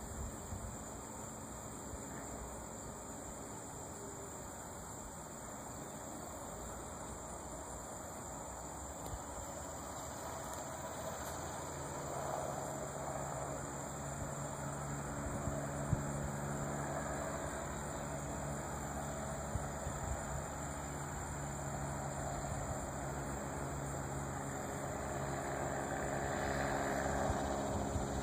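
A small propeller airplane approaching, its engine drone coming in about halfway through and growing louder toward the end. Steady insect chirring and a low wind rumble on the microphone run underneath.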